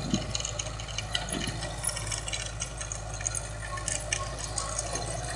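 Kubota MX5000 tractor's diesel engine running steadily under load while working soil, heard from a distance as a low hum under a crackly hiss.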